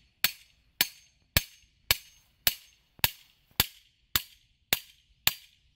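Hammer striking the top of the RVGroundmate metal grounding stake, driving it into the ground: about ten sharp metallic taps at a steady pace of roughly two a second, each with a short ring.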